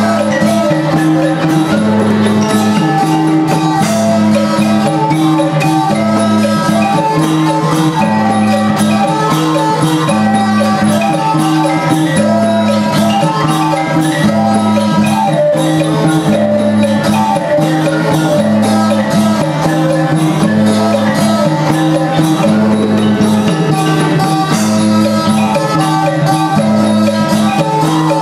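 Live Thai folk-band music accompanying a dance. Busy melodic notes run over a repeating low two-note line that alternates about once a second.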